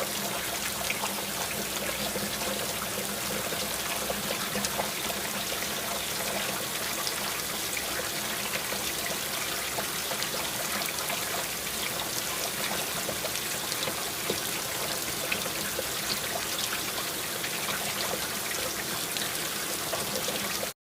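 Heavy rain falling steadily, a dense hiss with many small drop taps, which cuts off abruptly at the end.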